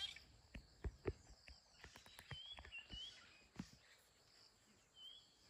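Quiet bush with faint, short bird chirps now and then, and scattered light clicks and rustles.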